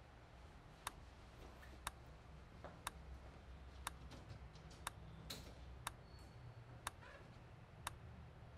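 A clock ticking quietly, one sharp tick each second, over a low steady room hum.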